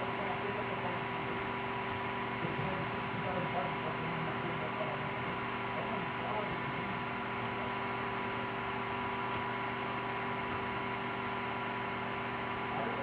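Steady electrical hum, several steady tones over a constant hiss, with no change through the stretch.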